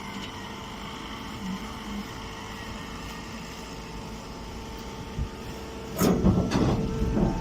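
Straw baler machine running with a steady hum, then louder, irregular knocking and clattering starting about six seconds in.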